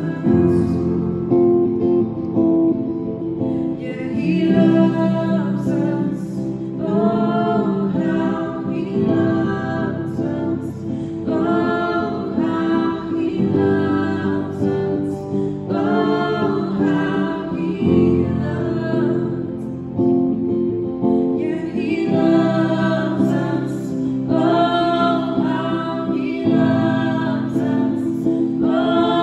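Three women singing a song live, accompanied by acoustic guitar and a Yamaha keyboard.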